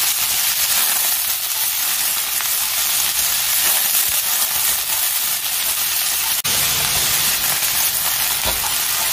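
Bean sprouts sizzling in hot oil in a wok as they are stir-fried and tossed until soft: a steady, even hiss that drops out for an instant about six seconds in.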